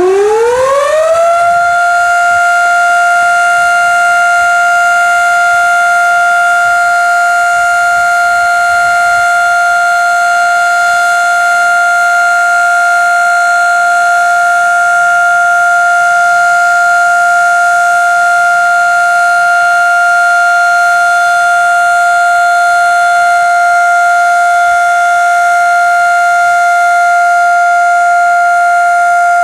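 Federal Electric Type B mechanical siren, a 1920s unit, finishing its wind-up: its pitch climbs for about the first second and a half, then holds one steady, loud wail.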